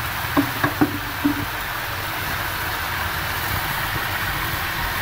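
A metal spoon clinks four times against a steel cooking pot in the first second and a half, over a steady hiss.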